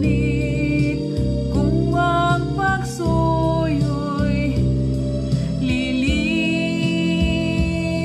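A woman singing a melody over instrumental backing music, with a long held note in the second half.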